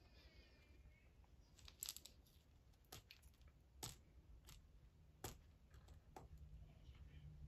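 Near silence with a handful of faint, sharp clicks and crinkles: a plastic crankbait being handled in the fingers while its tape is worked off.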